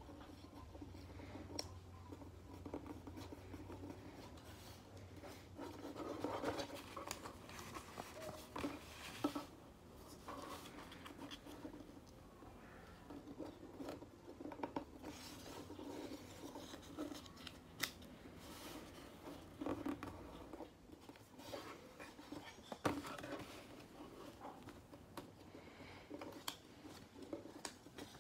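A sheet of paper being folded by hand: irregular rustling, crinkling and scraping as fingers press creases and slide the paper over the desktop, with a few sharp crackles as folds are snapped flat.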